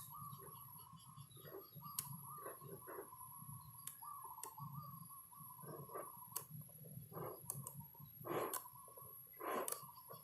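Small neodymium magnetic balls clicking sharply together as they snap into place, about once every second or two. Birdsong plays behind them.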